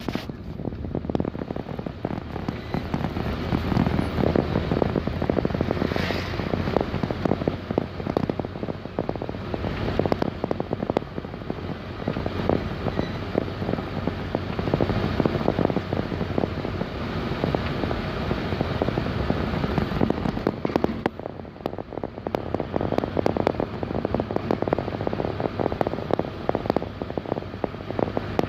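A moving vehicle heard from inside: a steady engine hum with a dense, rapid crackling rattle running through it.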